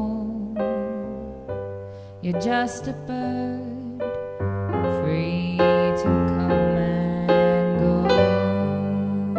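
Live band music led by stage-keyboard chords in electric piano tone, slow and gentle, with the chords changing every second or so over low notes.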